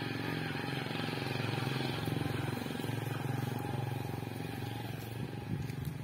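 A small engine running steadily, a low, evenly pulsing hum that eases off near the end.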